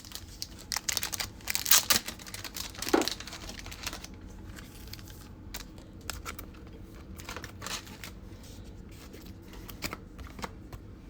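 Trading-card pack wrapper and cards being handled: a run of crinkling, crackling rustles in the first three seconds or so, then sparser light clicks and rustles.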